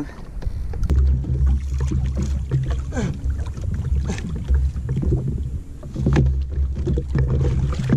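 Jet ski engine idling with a low, steady rumble and hum, with occasional splashes and knocks as a hooked kingfish is brought alongside.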